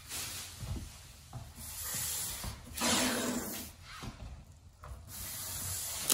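Blue painter's tape peeling off the roll in several long pulls, each about a second, with hands rubbing it down along a metal panel edge.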